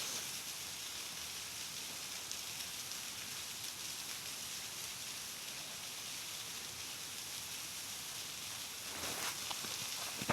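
Waterfall rushing, a steady even hiss. Faint rustling near the end.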